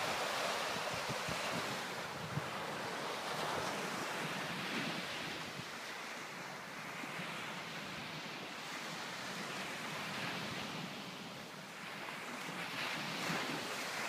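Sea surf washing onto a sandy beach, with wind buffeting the microphone; the wash swells near the start and again near the end.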